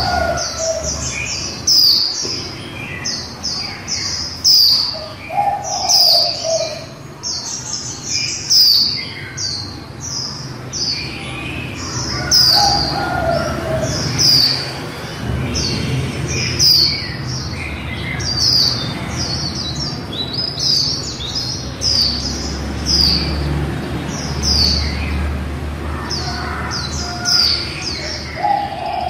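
Female white-eye giving a long run of short, high, thin chirps, one or two a second, each sweeping quickly downward, in a chattering song.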